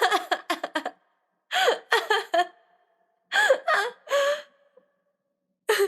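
A woman laughing in short bursts of a few quick breathy pulses each, with pauses of about a second between bursts.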